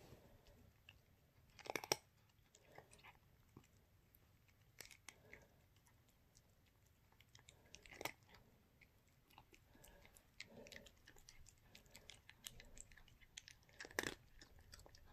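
A cat chewing dry kibble treats from a person's hand: quiet, irregular crunches, with a few louder ones about two, eight and fourteen seconds in.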